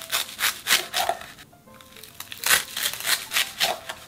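A kitchen knife pressing down through a stack of crisp grilled laver (gim) sheets, crunching and crackling in two spells, one for each cut, with a short pause between them. Soft background music plays underneath.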